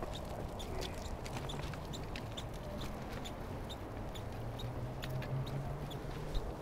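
Footsteps on a concrete path, an even click a little over twice a second, over a low hum that swells through the second half.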